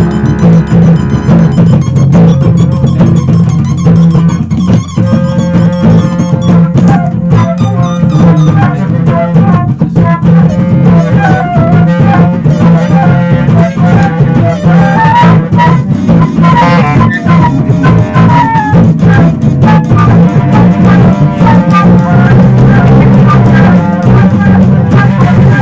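Loud instrumental music: a steady low bass line under drums and percussion, with a melody line moving up and down above it from about ten seconds in.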